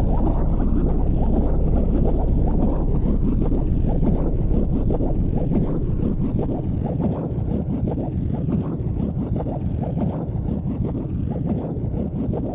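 Background soundtrack: a low, steady rushing texture without a clear tune, easing slightly in level about halfway through.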